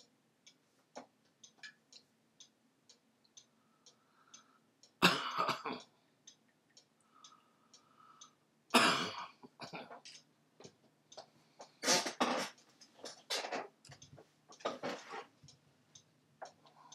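A person coughing and clearing their throat several times in short bursts, over a light, steady ticking of two or three ticks a second.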